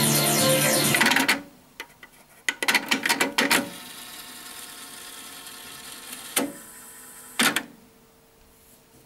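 Music playing from tape on a Pioneer CT-S250 cassette deck stops about a second in. The deck's tape transport then clicks and clunks as its buttons are pressed, runs with a steady whir for about four seconds as the tape winds at speed, and stops with a clunk.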